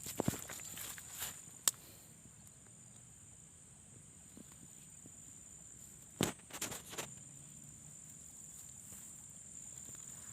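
Steady high-pitched insect chirring, with short crackles and rustles in the first couple of seconds and again about six seconds in.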